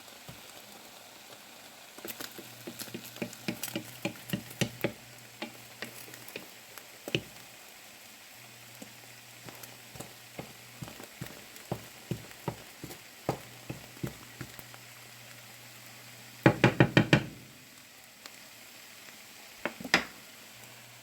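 Irregular sharp knocks and taps of a cooking utensil during cooking, with a quick run of about five loud knocks near the end and one more just after. A faint low hum comes and goes underneath.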